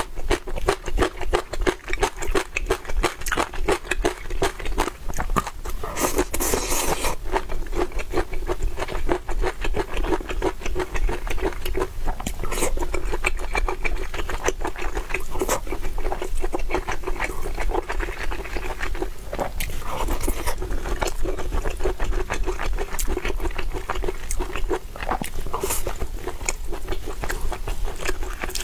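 Close-miked chewing and biting, a dense run of small clicks and crunches that goes on without a break, with some scraping.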